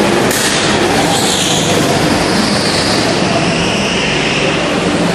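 Go-karts running on an indoor track, a loud steady engine drone in a large hall. A high hiss starts sharply about a third of a second in and sinks in pitch over the next few seconds.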